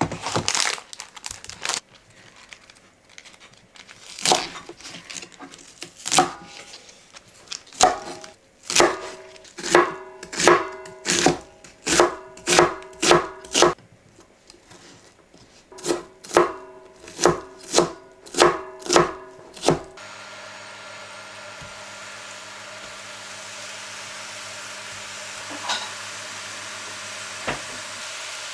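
Chef's knife chopping bok choy stalks on a wooden cutting board: runs of sharp chops, about one to two a second, each with a short ringing knock, with a pause partway through. About two-thirds of the way in it gives way to a steady sizzling hiss of romaine lettuce halves searing in a pan on an induction hob.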